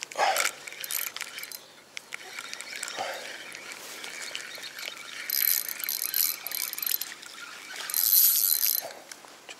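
Spinning reel being cranked to wind in line, in two spells from about halfway in, the second near the end the loudest, with rod-handling rustles before.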